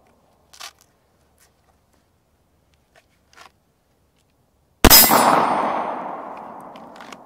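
A single handgun shot about five seconds in, with the struck steel target ringing out and fading over about two seconds. Faint clicks of the pistol being drawn from its holster come before the shot, and another near the end as it goes back toward the holster.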